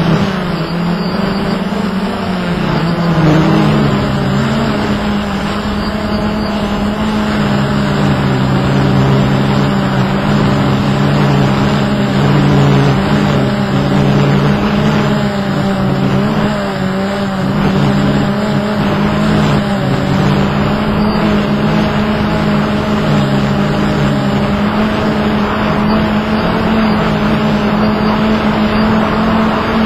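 Hubsan X4 Pro quadcopter's motors and propellers humming steadily in flight, several close pitches drifting slightly against each other as the motors adjust speed, with wind rushing over the microphone.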